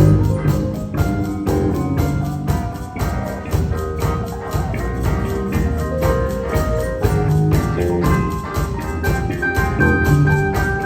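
Saxophone ensemble of alto, tenor and baritone saxophones with bass guitar and piano playing a jazz tune over a steady beat.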